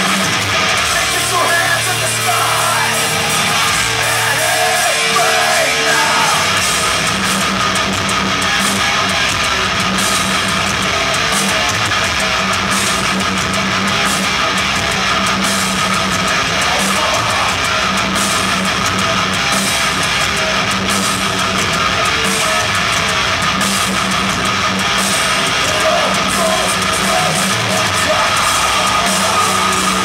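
Heavy metal band playing live: distorted electric guitars and drums, loud and steady, recorded from within the crowd.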